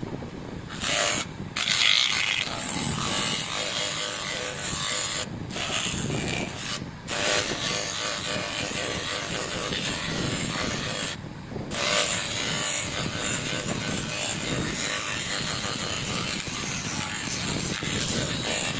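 Steady abrasive rubbing on the metal of a motorcycle rear footstep as it is worked toward a polished finish, broken by brief pauses about a second, five, seven and eleven seconds in.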